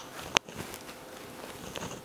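A single sharp tap about a third of a second in, amid faint handling noise: fingers picking berries out of a small ceramic bowl.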